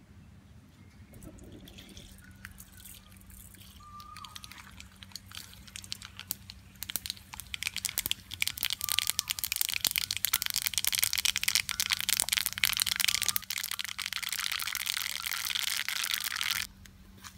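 Mustard seeds sizzling and popping in hot oil in an open pan over a wood fire. The dense crackle builds over several seconds, then cuts off suddenly near the end.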